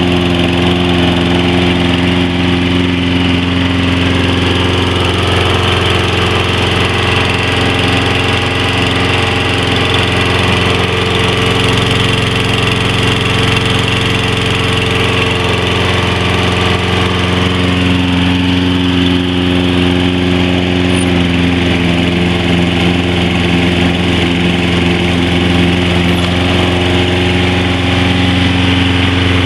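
2009 Toro Personal Pace mower's Briggs and Stratton 6.75 gross torque engine running steadily, just after starting on the first pull.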